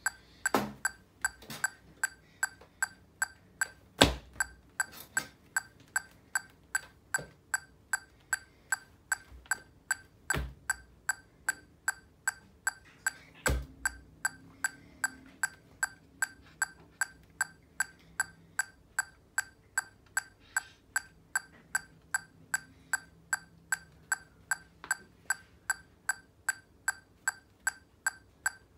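Korg TM-50 electronic metronome clicking steadily at 152 beats per minute, about two and a half clicks a second. A few louder knocks come in among the clicks, the loudest about four seconds in.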